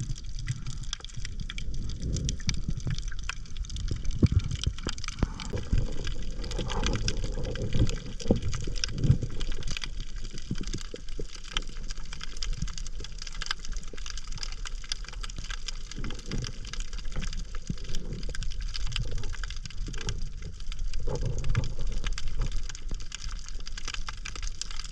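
Water sloshing and gurgling, with a steady rumble and many small scattered clicks.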